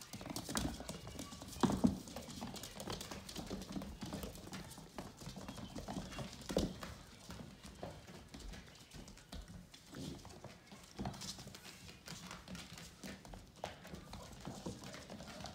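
Vizsla puppies' claws and paws clicking and scrabbling on a hardwood floor as they run and play, with a few louder knocks, the loudest about two seconds in.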